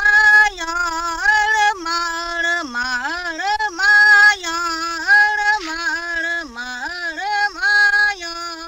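Interlude music: a single unaccompanied melody line, with held notes that bend and slide between pitches and no beat.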